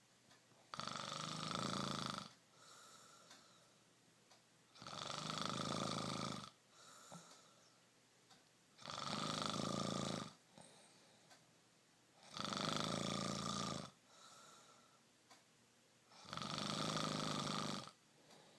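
A person snoring in sleep: five long, loud snores about four seconds apart, each followed by a quieter, shorter breath out.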